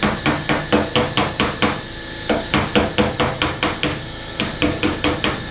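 Body hammer striking thin steel fender metal against a dolly held behind the panel: quick, sharp taps about five or six a second in three runs with brief pauses between. The metal is being hammered to stretch a dent back into shape.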